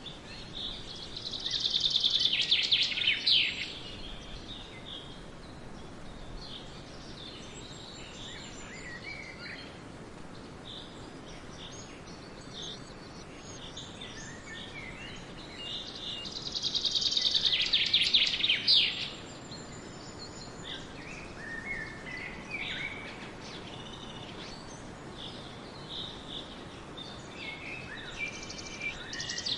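Woodland birdsong: one bird sings a loud, rapid trilling song of about two to three seconds twice, about fifteen seconds apart, with fainter short chirps and calls from other birds between. A steady low background hum of outdoor noise runs underneath.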